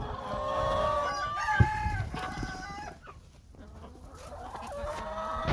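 Chickens calling: long, drawn-out calls that fill the first three seconds, then another starting near the end, with a sharp knock about one and a half seconds in.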